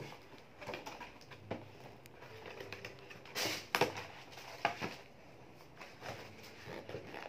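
Gift packaging being handled: scattered rustles and light taps of a cardboard cake box being picked up and moved, busiest about three and a half to five seconds in.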